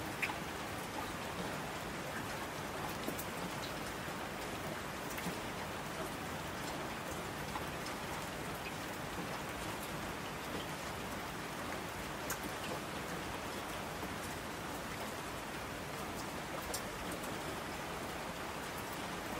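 Steady rain falling, an even hiss with a few scattered sharper drops.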